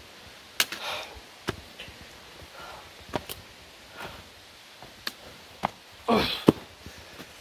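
A trekker climbing a steep rocky trail: sharp, irregular taps of a trekking pole tip striking the ground, with footfalls, and a short voiced grunt of effort near the end.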